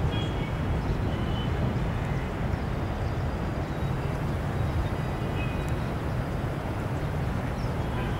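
Steady outdoor background noise with a heavy low rumble, typical of distant city traffic and wind on the microphone, with a few faint, short high-pitched chirps.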